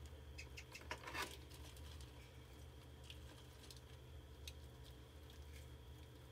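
Mice scrabbling and ticking with their claws on a plastic water-bottle trap, with a short scuffling splash about a second in as they drop inside; a few light ticks follow, quiet, over a steady low hum.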